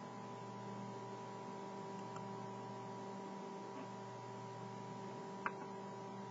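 Steady electrical hum with a faint hiss, and two short clicks, the sharper one about five and a half seconds in; the clicks fit mouse clicks as map layers are switched off in the software.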